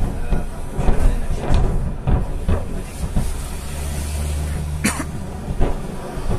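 Distant ammunition depot blowing up in a run of secondary explosions: repeated booms and thuds with a heavy low rumble, and one sharper crack about five seconds in. A steady low engine hum underneath, from the bus the recording is made from, is most plain around the middle.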